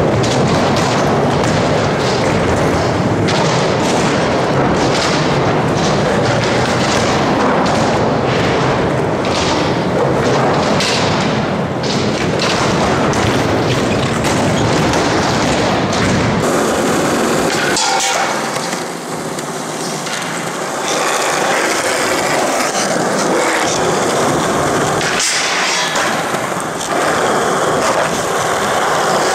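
Skateboard wheels rolling loudly on smooth indoor floors, with repeated sharp knocks from board pops and landings. The sound changes about halfway through, as the rolling moves onto a concrete floor.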